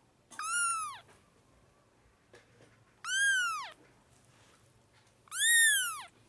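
Young kitten meowing three times, a few seconds apart. Each is a short, high call that rises and then falls in pitch.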